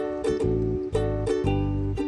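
Background music: plucked ukulele-style melody over a bass line with a steady beat, about two notes a second.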